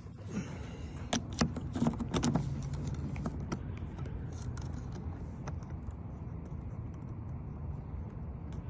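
Small metallic clicks and scrapes of a lock pick working in a 2010 Chevy Malibu lock, picked so the key cuts can be read off it. The clicks come thick in the first couple of seconds, then sparser, over a steady low hum.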